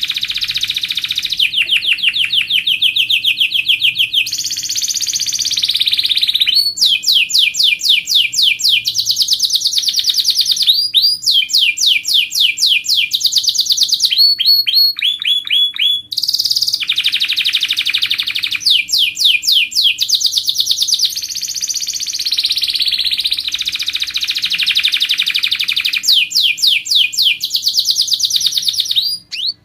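Canary singing a continuous song of fast trills and rolls: runs of rapidly repeated notes that change pitch and pattern every second or two. It is a master song, used as a tutor recording for contest canaries.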